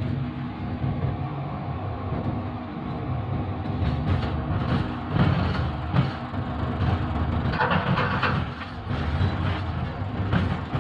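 GEU-40 diesel-electric locomotive running at speed, heard from inside its cab: a steady engine drone and train rumble, with irregular clicks and knocks starting about four seconds in.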